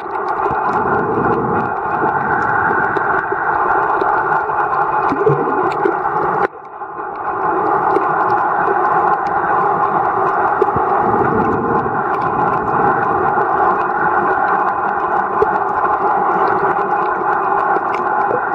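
Steady, muffled underwater noise from a camera in a waterproof housing, with a few held resonant tones and faint scattered crackles. It drops out sharply about six seconds in and fades back up within a second.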